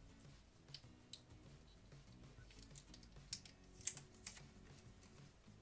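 Scattered light clicks and ticks of fingernails picking at and handling a curled paper sticker, busiest about three to four seconds in, over faint background music.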